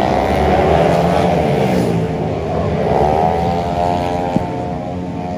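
Racing automatic scooter engines, open 130cc class, running hard as the riders pass through a corner. The engine notes glide down and back up, rising sharply about three seconds in, and grow fainter as the pack pulls away.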